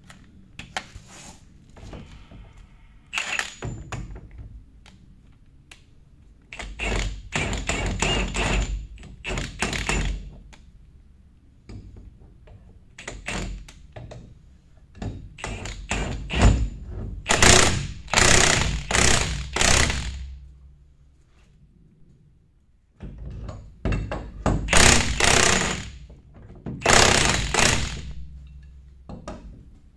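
Power tool running in several bursts of one to four seconds, with metal knocks between, as bolts on a street sweeper's brush mount are worked.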